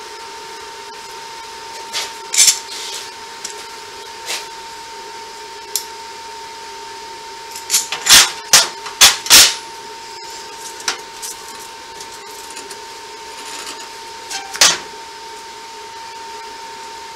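Sharp metal clanks and clicks as steel parts and clamps are handled on a welding bench: a single knock early, a quick run of four around eight to nine seconds in, and another near the end, over a steady hum.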